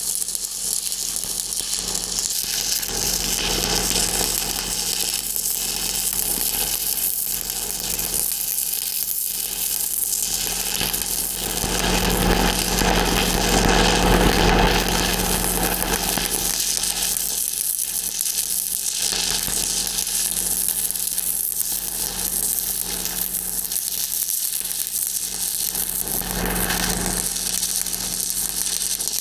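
Stick-welding arc crackling and sizzling steadily as a 3/16-inch electrode runs a downhill hot pass on a pipe joint, with a steady low hum underneath. It swells a little louder about halfway through.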